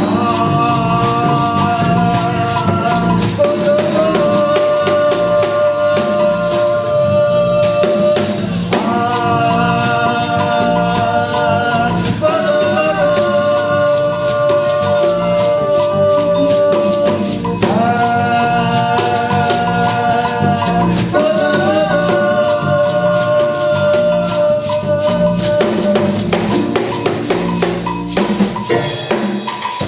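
Music with fast shaker-like rattle percussion and drums under a melody of long held notes, in phrases of a few seconds each.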